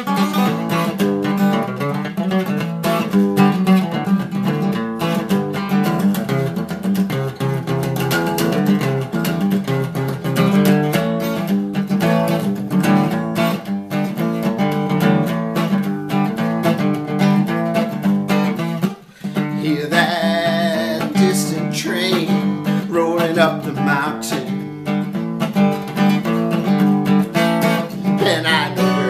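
Acoustic guitar played with steady strumming and picked chords in an instrumental passage of a folk-style song, with one brief break in the playing a little past two-thirds in. After it a man's voice joins in, singing over the guitar.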